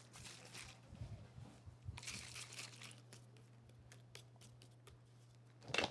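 Makeup products being handled: short scratchy, crinkling bursts with scattered small clicks, and a louder knock or rustle just before the end, over a faint steady hum.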